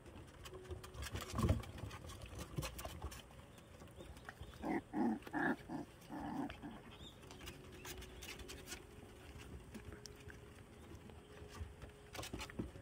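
Puppies playing and tussling, with a run of five or six short, pitched yips about five seconds in; scattered sharp taps and a thump early on.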